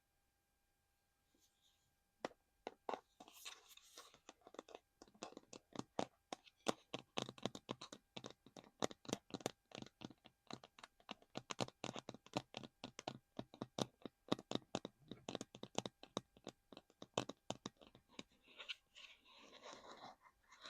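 Close-up ASMR tapping on a small hard collectible: a long run of quick, crisp taps, several a second, starting about two seconds in, giving way near the end to scratching and rustling.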